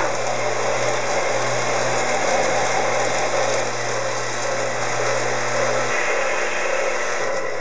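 Steady mechanical whirring noise of a model train layout running, with a low electrical hum that cuts off about six seconds in.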